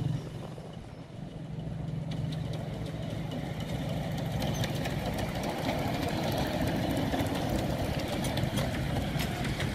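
10¼-inch gauge miniature steam locomotive approaching and running past with its train, getting louder over the first few seconds, with a rapid clatter of clicks and knocks from the engine and wheels.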